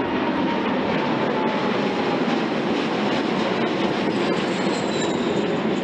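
Boeing 787 jetliner taking off: a steady jet-engine roar with a faint whine that slowly falls in pitch.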